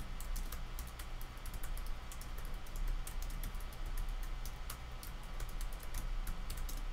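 Typing on a computer keyboard: quick, irregular keystrokes.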